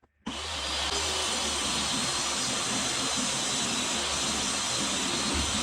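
A woodworking power tool running steadily, a dense whirring noise that starts abruptly just after the beginning.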